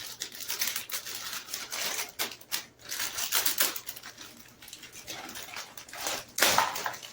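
Plastic packaging and the LED strand being handled: quick irregular crinkling and clicking, with a louder rustle about six seconds in.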